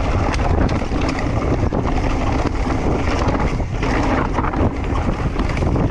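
Wind buffeting the camera microphone as a mountain bike rides fast down a dirt forest trail, with the tyres rumbling over the ground and the bike rattling and clicking over roots and bumps.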